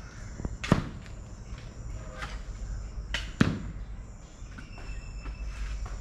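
Two heavy thuds, about two and a half seconds apart, as freshly plucked coconuts drop from the palm and hit the ground.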